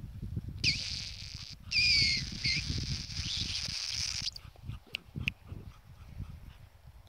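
A dog whining: a high, strained whine lasting nearly four seconds, broken by a few short falling squeals, starting about half a second in.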